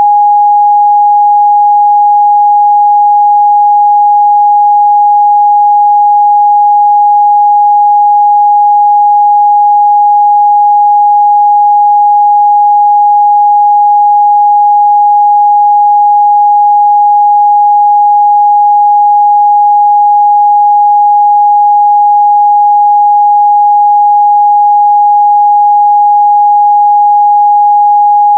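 A steady, loud 826 Hz pure sine test tone, one unchanging pitch with no other sound.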